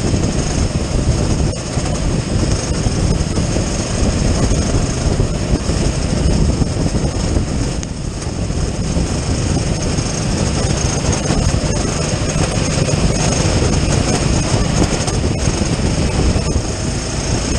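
Go-kart engine running at racing speed, heard from the onboard camera, with a steady hiss of wind and spray from the wet track. The engine note dips briefly about two seconds in and again about eight seconds in.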